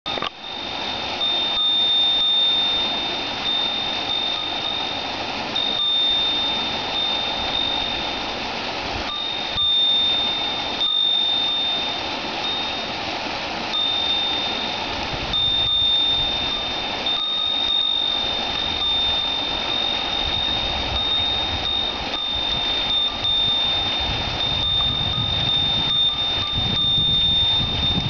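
Stream water rushing steadily over a small stone weir, with a Japanese wind chime (fūrin) ringing at one high pitch almost throughout, broken by a few short gaps.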